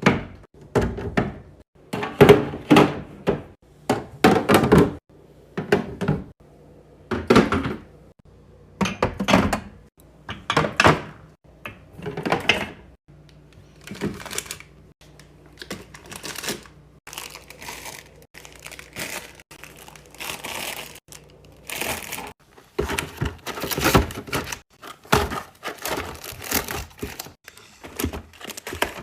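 Fridge restocking: a long run of separate thunks and knocks as containers and packages are set down, with crinkling of plastic packaging in between.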